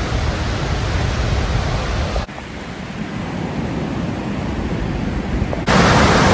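Steady rushing roar of a waterfall, dropping in level about two seconds in and jumping much louder near the end.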